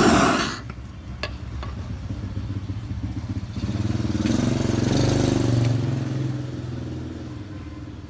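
A brief loud rush of noise that cuts off about half a second in, then a motorbike engine passing by, growing louder to a peak midway and fading away.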